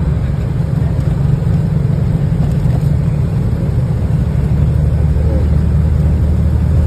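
Steady low rumble of engine and tyre noise inside a moving bus at road speed. A deeper drone grows louder about five seconds in.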